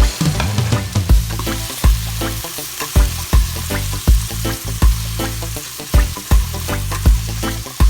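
Food sizzling in a frying pan while being stirred, under background music with a steady thumping beat.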